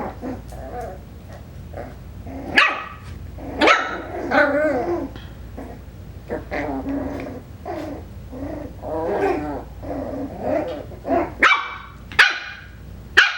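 Five-week-old Coton de Tulear puppy barking and growling in play: a run of short, high-pitched yaps, with lower growls between them.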